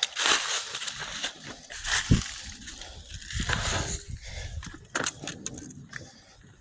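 Footsteps crunching on the ground while walking, with handling and wind rumble on the microphone; the crunching thins out in the last couple of seconds.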